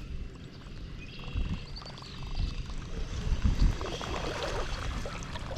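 Wind rumbling on the microphone over water lapping and splashing against a small boat, growing louder toward the end.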